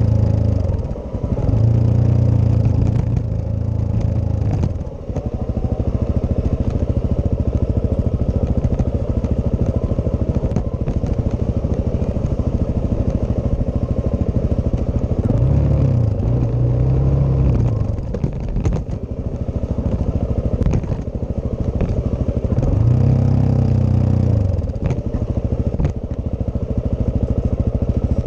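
Suzuki DR-Z400S single-cylinder four-stroke engine running under way on a rough dirt track, its revs falling and rising with the throttle several times. Scattered knocks and rattles from the bike jolting over the ruts.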